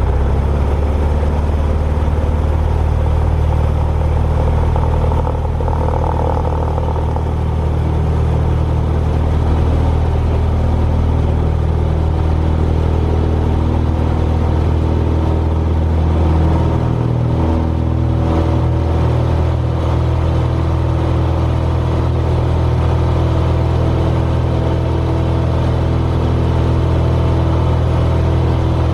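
Single-engine light airplane's piston engine and propeller at full takeoff power, heard from inside the cockpit as a loud, steady engine note. The tone shifts slightly about two-thirds of the way through.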